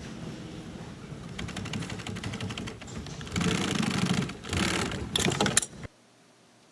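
Sewing machine stitching a seam in nylon in several short runs of rapid needle strokes, loudest between about three and six seconds in, then cutting off suddenly.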